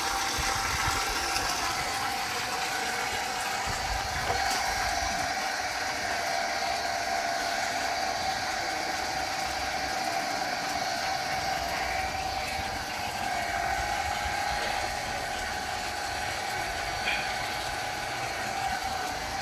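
Water from a running Kirloskar Neo 1 HP 14-stage submersible borewell pump gushing steadily out of the end of the delivery pipe and splashing onto the ground, over a steady mid-pitched hum.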